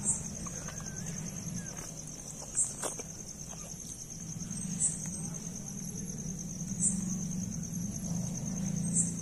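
Crickets trilling steadily, with a louder, higher chirp about every two seconds, over a low steady hum; a single click about three seconds in.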